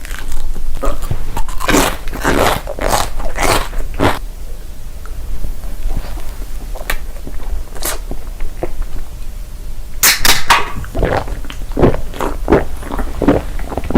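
Close-miked eating: bites and crunchy chewing of food in irregular bursts, with a cluster of sharp crunches about ten seconds in.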